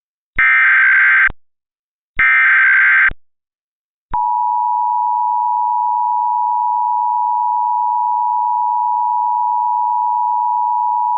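Emergency Alert System SAME header: the last two of its three repeats, each a harsh digital data squawk about a second long. From about four seconds in comes the steady two-tone EAS attention signal, a loud unbroken dual tone.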